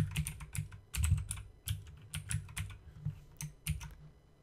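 Typing on a computer keyboard: a quick, irregular run of keystrokes that stops shortly before the end.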